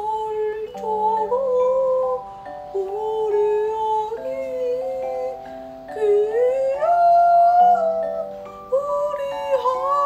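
A woman singing a lullaby to a baby, her voice carrying a slow, wavering melody over held notes of a gentle instrumental backing.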